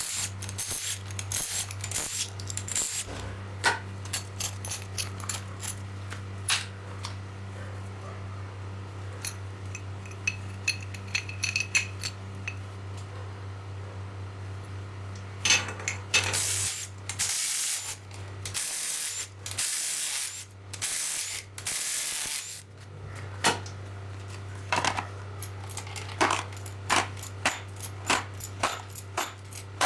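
Hand tools and metal engine parts clicking and clinking during a diesel engine teardown, with ratchet-like ticking, over a steady low hum. A little past halfway there are five short hissing bursts in quick succession.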